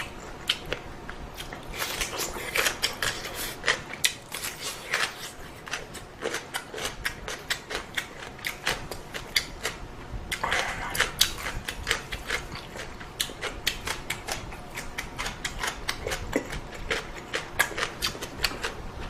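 Close-miked eating of ramen: rapid chewing with many small wet mouth clicks, and a couple of longer noodle slurps about two seconds in and about ten seconds in.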